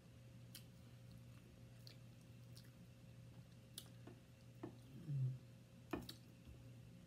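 Quiet eating sounds: scattered light clicks of a metal fork against a plate and soft chewing, with a brief low mouth sound about five seconds in and a sharper click near the end, over a steady low hum.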